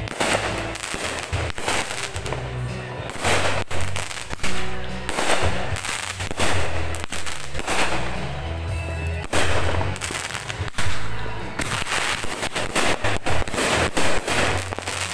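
Aerial fireworks going off in quick succession: a loud bang about once a second, with crackling bursts in between.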